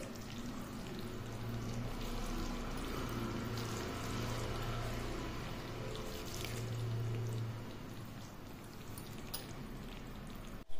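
Steady hissing noise with a low hum underneath; the hum and the overall level drop away about eight seconds in.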